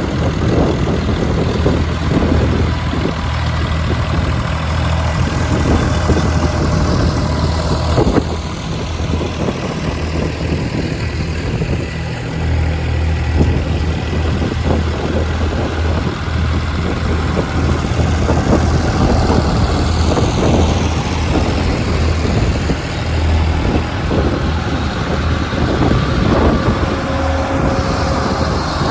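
Vintage tractor engine running steadily with a low hum.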